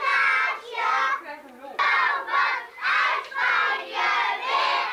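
A group of young children singing together in unison, in short rhythmic phrases.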